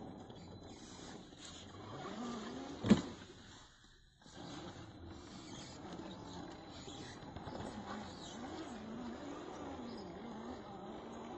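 Austar SCX10 II-clone RC crawler's electric motor and gearbox whining, the pitch rising and falling over and over with the throttle as it crawls. There is one sharp knock about three seconds in.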